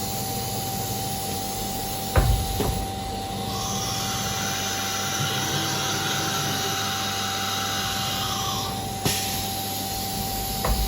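Automatic tool changer on a CNC router at work over a steady machine hum: two clunks about two seconds in, then a steady hissing whir for about five seconds that stops with a sharp click, and another clunk near the end.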